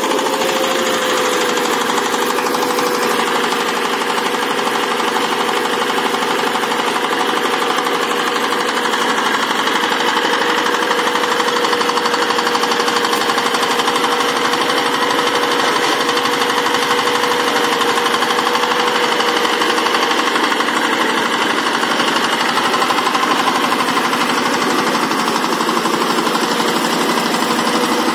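VST Shakti 130 DI power tiller's single-cylinder diesel engine running steadily while the tiller rotavates soil.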